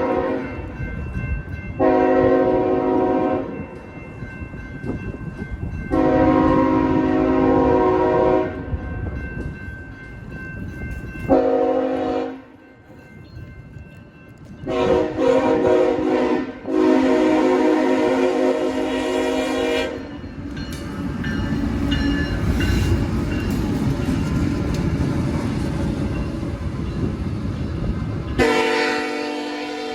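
Nathan K5HL five-chime air horn on a CSX ET44AH diesel locomotive sounding about six blasts, short and long, the longest about three seconds. Under the horn runs the low rumble of two light-engine diesel locomotives passing, loudest in the gap without horn late on.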